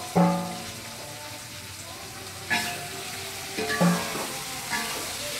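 Greens sizzling as they fry in a steel wok. A loud ringing metal clang comes just after the start, then the metal spatula scrapes and clinks against the wok a few times as the greens are stirred.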